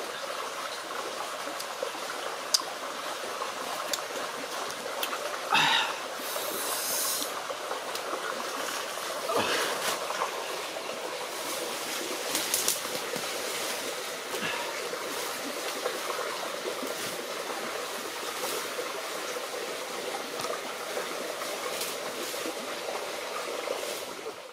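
A stream running steadily, with a few brief knocks and rustles now and then.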